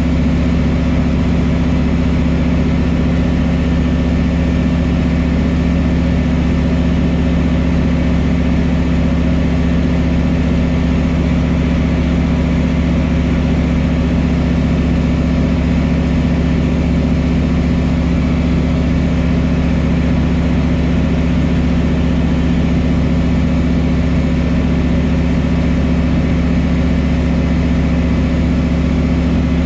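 Pipistrel Virus light aircraft in steady cruise, heard inside the cockpit: the Rotax 912-series four-cylinder engine and propeller drone at a constant pitch and level, with air noise over the cabin.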